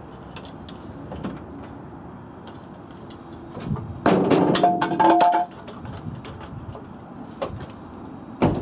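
Pickup truck door being moved to test its fit after the hinges were bent: a loud creaking, scraping stretch of about a second and a half midway, then a sharp clunk near the end as the door shuts.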